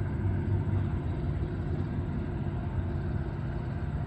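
Diesel locomotives of an approaching freight train: a steady, low engine drone.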